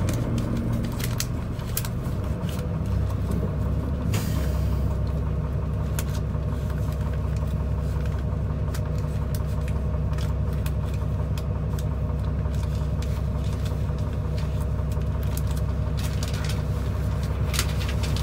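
Isuzu Erga city bus engine idling steadily while the bus stands still, heard from inside the cabin, after its rumble dies down over the first couple of seconds. A short hiss of air comes about four seconds in.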